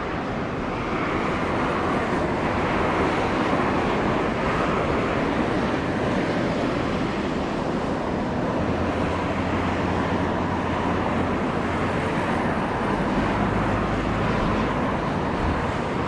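Strong gusting storm wind rushing over the microphone in a steady noise. A low hum joins about halfway through and fades near the end.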